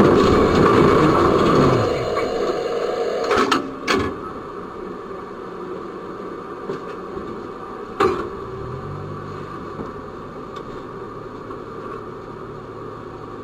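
Car-and-tram collision aftermath: a loud noisy grinding and scraping of metal as the car is pressed against the tram's front, fading after about three seconds. A few sharp knocks follow, then a low steady hum from about nine seconds in.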